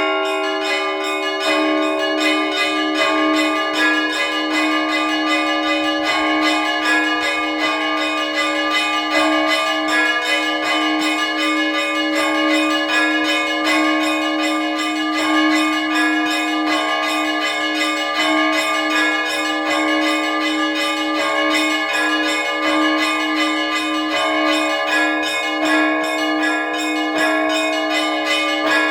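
Russian Orthodox church bells rung in a trezvon: a continuous, rapid peal of small bells struck many times a second over a steadily repeated lower bell, the tones ringing on and overlapping.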